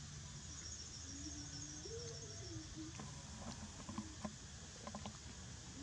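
Quiet outdoor ambience: a rapid, high chirping trill in the first half and a faint wavering tone around the second second, then a few soft clicks as roasted corn kernels are picked off the cob by hand.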